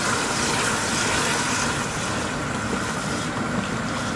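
Sliced onions sizzling and bubbling in oil with a little added water in an aluminium pot: a steady hiss as they cook down to soften.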